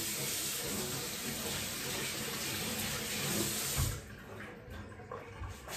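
Kitchen sink tap running at full flow as mushrooms are rinsed under it, shut off abruptly about four seconds in, followed by quieter handling sounds at the sink.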